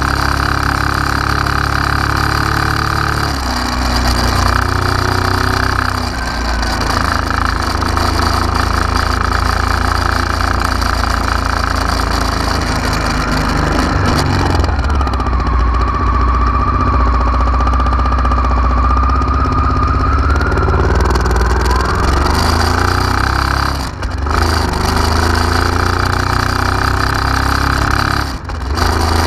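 Honda Africa Twin RD04 V-twin engine running at about idle, its pitch shifting a little now and then. A steady high whine sounds over it for several seconds midway, and the sound drops out briefly twice near the end.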